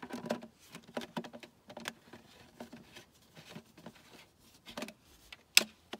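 Plastic nozzle tube being pushed and twisted onto the body of a Milwaukee M18 Fuel blower: irregular plastic clicks and knocks, then one sharp, loud snap near the end as the tube locks into place.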